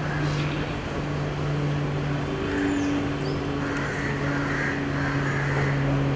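A steady low hum under a wash of background noise, with a short knock just after the start and a few faint calls later on.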